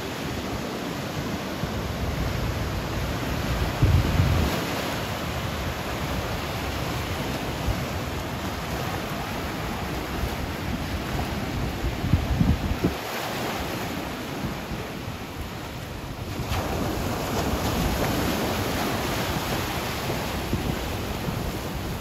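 Ocean surf breaking over rocks and washing across the shallows, a steady roar of rushing water. Wind rumbles on the microphone, with heavy low surges about four seconds in and again around twelve seconds in.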